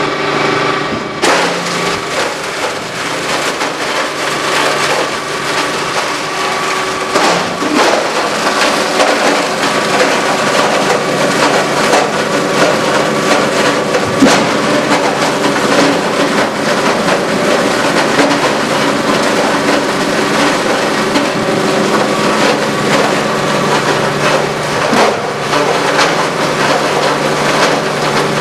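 Open rotor granulator with a 25-hp direct-drive electric motor grinding cardboard cores and wood. The motor's steady hum runs under a dense crackle of material being cut, with many sharp cracks. The crackle grows fuller about a second in.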